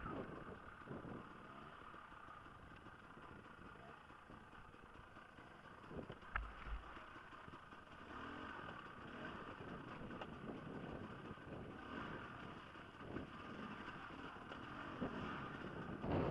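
Off-road trail motorcycle running at low revs over a rocky track, with a few sharp knocks about six seconds in and again near the end as the bike jolts over rocks.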